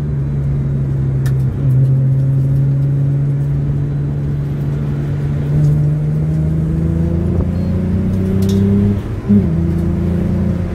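Hyundai Tiburon's V6 engine running under way, heard from inside the cabin: a steady hum whose pitch climbs gently as the car gathers speed from about halfway, then dips briefly near the end as the revs drop a little.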